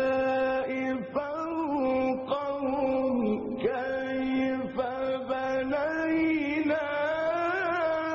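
A male Quran reciter's voice in the melodic mujawwad style, drawing out long ornamented, wavering notes with a few short breaks.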